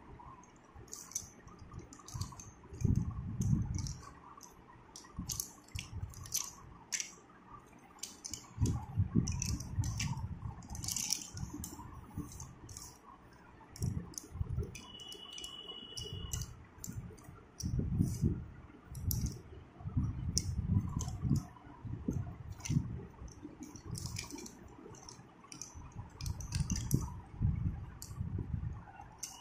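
Long chalk sticks clicking and clinking against one another and the concrete floor as they are picked up and stacked by hand, mixed with dull low knocks and rubbing from the handling.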